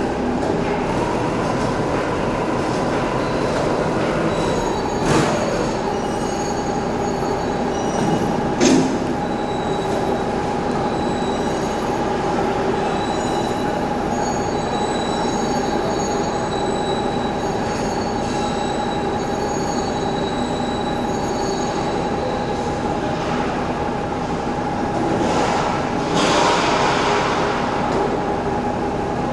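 Overhead crane's electric motor whining steadily over workshop machinery noise, with two sharp metal clanks about five and nine seconds in and a louder rushing stretch near the end.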